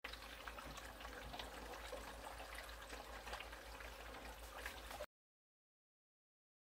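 Water trickling and gurgling faintly through a home-made no-drill aquarium overflow box, with many small drips and a low hum underneath; it cuts off suddenly about five seconds in.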